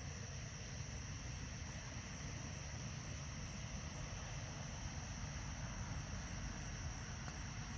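Steady night chorus of crickets and other insects, a continuous high-pitched trill, over a low steady rumble.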